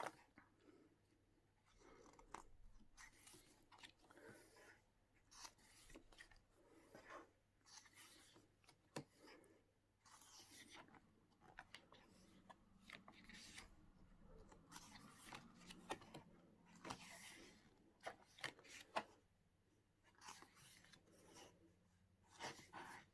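Faint rustling and soft scraping of paper as the pages of a thick album photo book are turned and handled, with a few light clicks.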